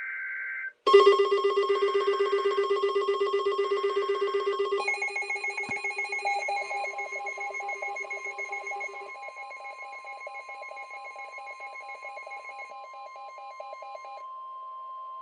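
Emergency alert signal: a brief data burst, then a loud, rapidly pulsing ringing alarm of several tones that slowly fades, giving way to a single steady high tone near the end. This is the attention signal that opens a new weather warning.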